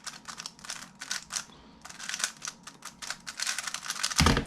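Rubik's cube being turned at speedsolving pace: rapid plastic clicking and clacking of layers snapping round. Near the end comes a heavy thump and a sharp crack.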